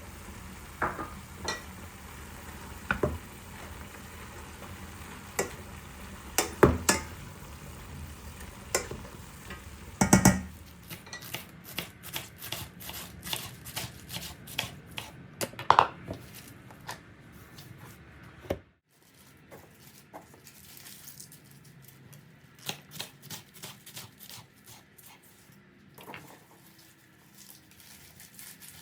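Kitchen work: scattered knocks and clinks of utensils against pots and dishes, then a long run of quick, rapid taps like a knife chopping on a board. The steady background hum drops away suddenly about two-thirds through.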